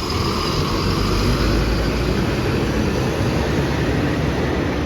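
Diesel engine of a city route bus running loudly and steadily, a little louder just after the start, then beginning to fade near the end.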